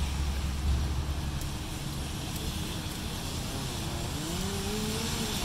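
City street traffic: motor vehicles driving past with a steady hiss and a low rumble that is strongest in the first second. From about four seconds in, a pitched engine note rises and then dips slightly.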